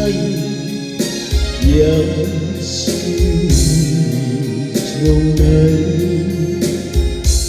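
Music: a Taiwanese Hokkien pop ballad, with a sung melody over a keyboard and band backing track.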